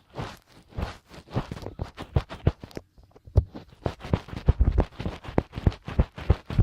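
Fingertips rubbing and scratching inside the ear of a binaural dummy-head microphone, ASMR 'finger ear cleaning'. It is a rapid, irregular run of short scratchy strokes with dull thuds, several a second, pausing briefly about three seconds in.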